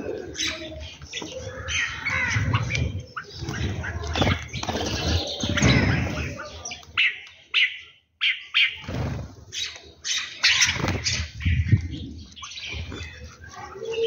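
Small birds, bulbuls and sparrows, chirping and squawking over one another in short sharp calls, with wingbeats as birds flutter in and out. The sound drops out briefly about eight seconds in.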